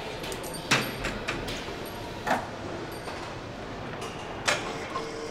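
Car assembly-line ambience: a steady machinery background with three sharp metallic clanks, about a second, two seconds and four and a half seconds in. A steady hum starts near the end.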